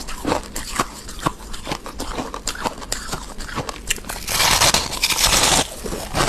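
Freezer frost being chewed close to the microphone: squeaky, crunchy bites about twice a second, with a louder, denser crunch about four seconds in that lasts over a second.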